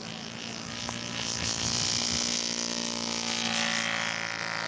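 Radio-control scale Corsair model's engine running at full power on takeoff, a steady droning tone with a high hiss that grows louder over the first two seconds and then eases slightly as the plane passes.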